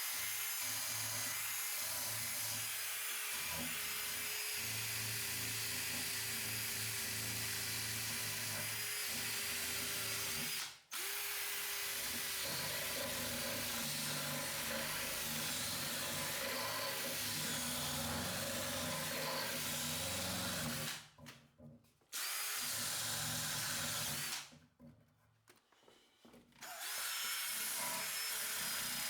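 Power tool running steadily under light load, in long stretches that stop abruptly once about eleven seconds in and twice more later on.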